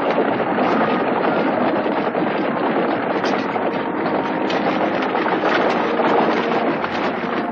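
Many horses and a horse-drawn covered wagon on the move: a dense, steady clatter of hooves and wheels.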